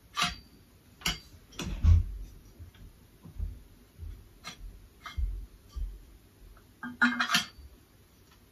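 Painted steel tube parts of an IKEA Råskog trolley clinking and knocking against each other as they are handled and fitted together, in scattered single clicks, with a heavier thump about two seconds in and a quick run of clinks near the end.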